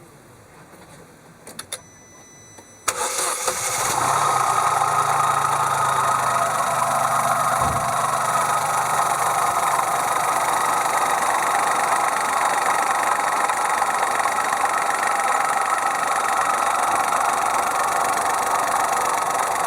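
2002 Opel Corsa C's three-cylinder 1.0-litre petrol engine: a couple of faint clicks, then about three seconds in it starts abruptly and runs steadily and loudly. It carries a noise that its owner cannot identify.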